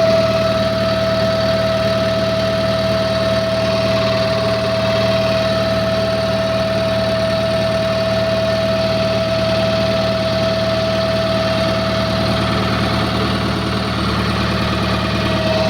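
Hitachi excavator's Isuzu 4HK1 four-cylinder diesel idling steadily just after starting, with a steady high whine over the engine note.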